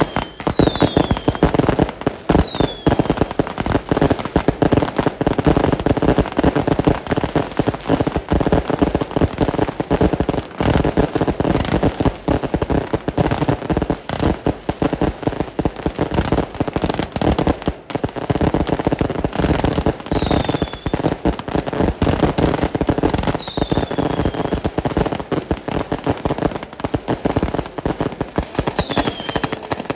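Fireworks and firecrackers going off in a dense, unbroken crackle of bangs, with a few short high whistles that fall in pitch.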